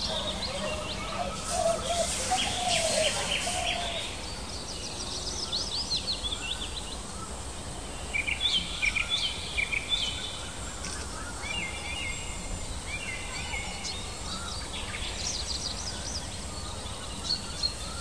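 Wild birds chirping and calling in repeated short bursts, over a steady low background hum.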